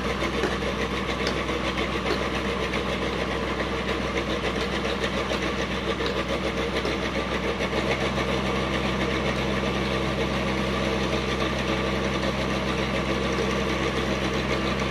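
Engine of a sand-dredging boat running steadily, its note shifting about halfway through.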